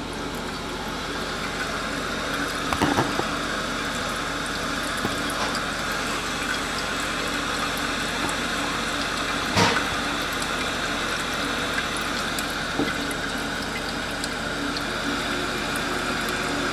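Toilet tank refilling through a newly installed Korky universal fill valve: a steady hiss of water running into the tank. A couple of short clicks, about three seconds in and about nine and a half seconds in, come from handling near the tank.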